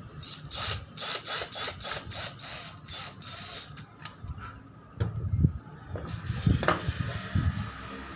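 Rhythmic hand scraping, about four to five quick strokes a second for two or three seconds, then a sharp click about five seconds in, a few dull knocks and a short falling squeak.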